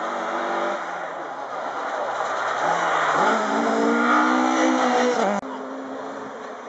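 Rally car engine at full throttle as the car passes on a snowy gravel stage, with rushing tyre noise. The revs climb about three seconds in, and the sound cuts off suddenly a little after five seconds.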